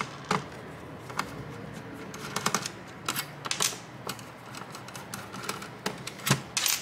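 Irregular small clicks and taps of a screwdriver and fingers working small screws and parts in the sheet-metal chassis of a mini PC.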